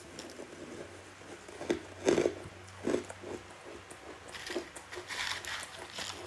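Close-up biting and chewing of soft, powdery freezer frost: a few sharp crunches about two seconds in, then softer crackly chewing.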